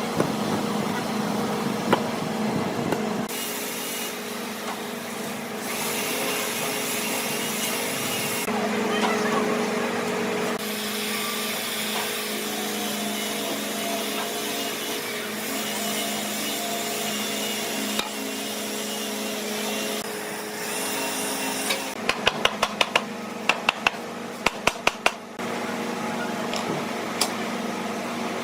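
Woodworking machinery running with a steady hum, changing abruptly several times, with a quick series of sharp knocks or taps about three-quarters of the way through.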